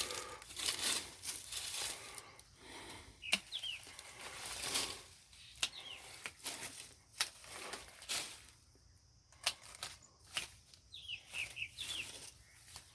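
Leafy mango branches rustling and swishing as they are cut back and pulled away in pruning, with a few sharp snaps or cuts. Short high bird chirps several times, most near the end.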